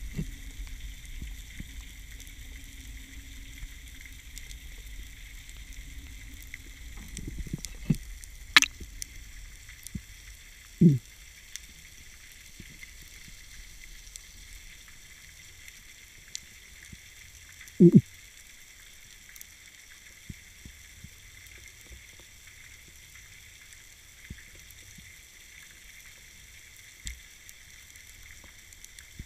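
Underwater ambience heard through a camera's housing: a steady fine crackling hiss over a low rumble. It is broken by one sharp click at about eight and a half seconds and by two short, loud, low knocks, around eleven and eighteen seconds in.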